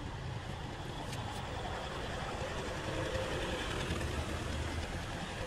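Pickup truck's engine running close by, a steady low rumble.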